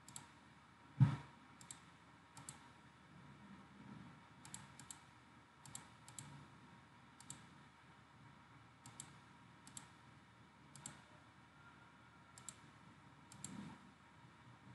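Computer mouse clicking, about a dozen separate clicks at irregular intervals, many heard as a quick press-and-release pair. A single dull thump about a second in is louder than any click.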